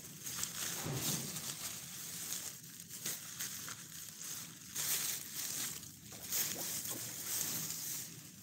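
Plastic bag crinkling and rustling as hands fold and handle it, in uneven surges.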